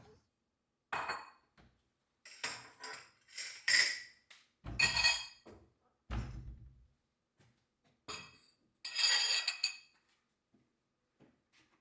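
Kitchenware being handled: a series of clinks and clatters of dishes and utensils, some ringing briefly, with a couple of duller thuds around the middle.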